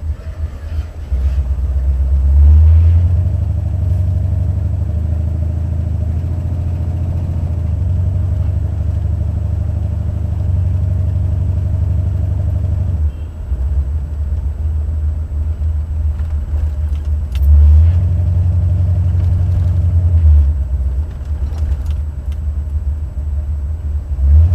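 Stage 1 Buick 455 V8 heard from inside the car while driving: a steady deep engine and exhaust rumble. It swells louder a couple of seconds in, again about two-thirds of the way through, and once more just before the end.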